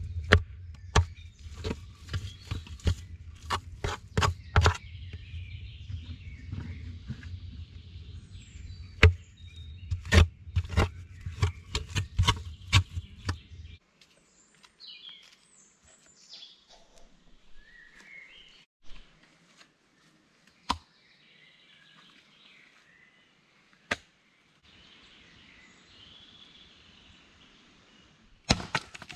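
Quick series of sharp knocks and taps over a low rumble, from stones and clay being handled and set around the rim of a dug tandoor pit. After about fourteen seconds it drops to woodland birds chirping, with two single knocks.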